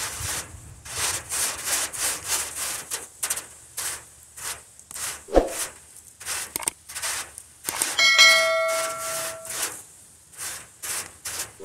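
Grill brush scrubbing back and forth across a wire-mesh grill grate in quick rasping strokes, about three a second, scraping off old food residue. A sharp knock comes about five seconds in, and near eight seconds a metallic clang rings on for about a second and a half.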